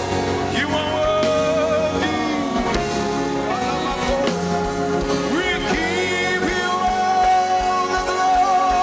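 Gospel choir and a lead voice singing a worship song with band accompaniment, the lead holding long notes with vibrato over the choir.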